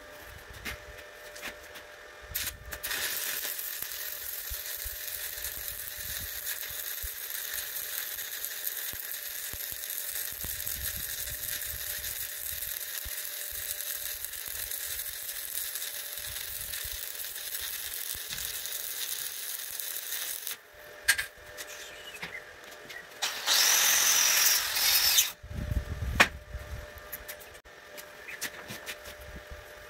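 Stick-welding arc burning a 1/8-inch 7018 electrode: a steady crackling hiss that breaks off about two-thirds of the way through. A shorter, louder burst of noise follows near the end, then a sharp click.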